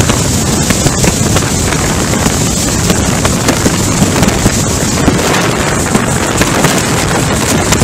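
Hurricane-force wind blowing in a loud, unbroken rush and buffeting the microphone, with many small crackles and knocks through it.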